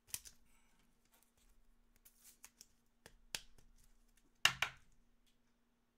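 Trading cards and packs being handled on a table: soft rustling and sliding with a few sharp clicks, the loudest a quick pair of clicks about four and a half seconds in.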